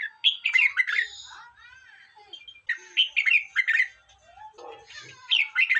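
Red-whiskered bulbul singing: three short, quick warbled phrases, about two and a half seconds apart, with faint chirps between them.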